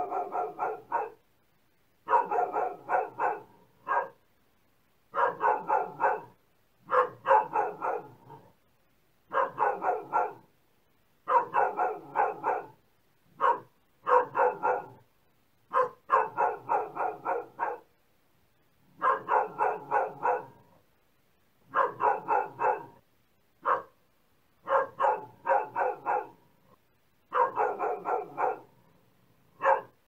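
A dog barking in quick runs of several barks each, with a run about every two seconds and silence between them.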